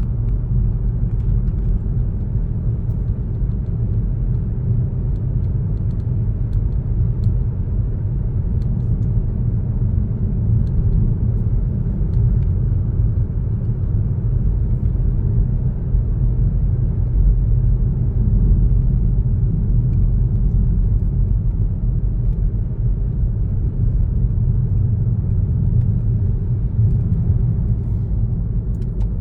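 A car driving at a steady pace: a continuous low rumble of tyre and engine noise that holds even throughout.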